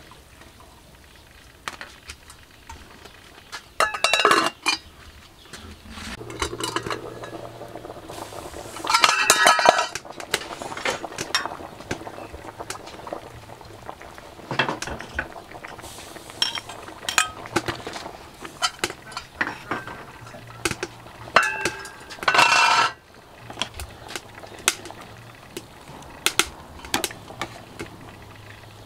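A ladle clinking and scraping against a large metal cooking pot while stirring boiling soup, with many short clinks and a few louder, longer scrapes spread through.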